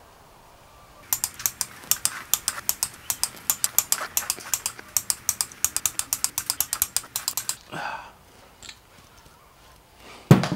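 Hand ratchet clicking rapidly, about seven clicks a second for several seconds, as it runs bolts on the main bearing caps of a Mazda BP 1.8 L block. A short scrape follows, then a single loud metal knock near the end.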